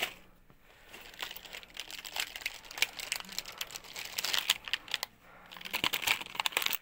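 Plastic rustling and crinkling, a run of quick crackly clicks that pauses briefly about five seconds in and then starts again.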